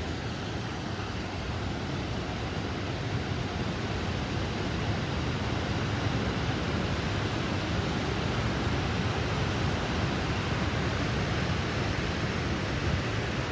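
Godafoss waterfall rushing steadily, carrying full spring snowmelt flow, a little louder after the first few seconds.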